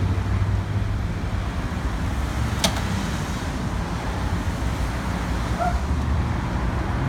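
A motor vehicle engine running with a steady low rumble, and a single sharp click about two and a half seconds in.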